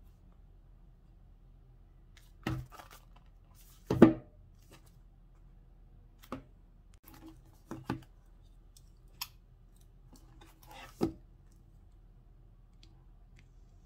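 Shrink-wrapped cardboard puzzle box handled and turned over in the hands: a handful of separate short taps and plastic-wrap crinkles, the loudest about four seconds in, over a faint steady low hum.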